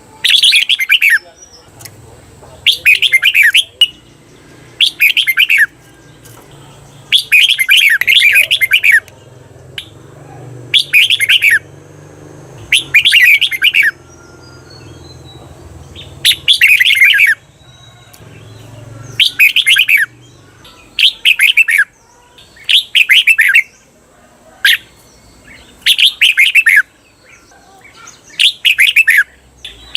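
Red-whiskered bulbul singing short, rapid, warbling phrases, about one every two seconds, a few of them longer and doubled. This is the 'double' song style that is played to train caged bulbuls.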